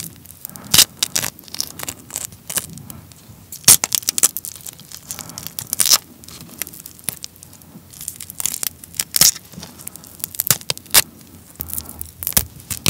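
Shell of a soy-sauce-marinated raw shrimp being peeled off by hand close to the microphone: many sharp, irregular cracks and clicks as the shell and legs are pulled away.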